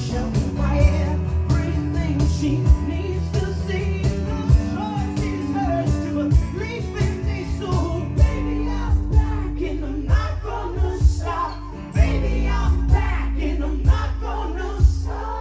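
Acoustic rock band playing live: a high lead voice singing over strummed guitars and a low bass line, with a steady beat of percussion hits.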